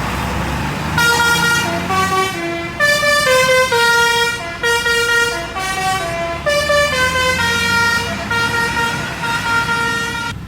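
Indonesian bus 'telolet' horn, a multi-tone musical air horn, playing a melody of held notes that step up and down, starting about a second in and cutting off suddenly near the end. The bus engine's low running sound is heard underneath.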